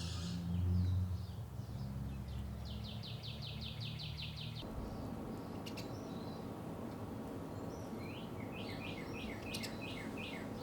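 Backyard songbirds singing: a fast, even trill of about a dozen high notes, then near the end a run of short down-slurred notes, over steady low background noise.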